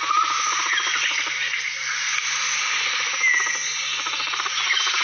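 A steady, dense chorus of frogs and insects, with a few short chirps above it.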